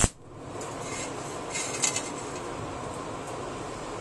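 A MIG tack weld's crackle on the steel exhaust baffle cuts off right at the start. Then comes a steady hiss between welds, with a couple of faint metallic clinks about a second apart.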